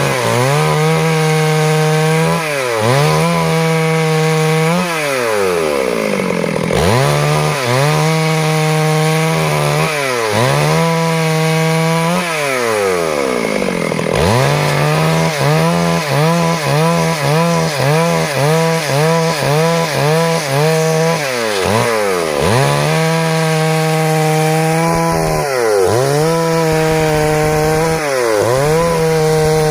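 Stihl MS 382 two-stroke chainsaw cutting wood, held mostly at full throttle, its pitch dropping and climbing back up again and again. In the middle stretch it dips about once a second.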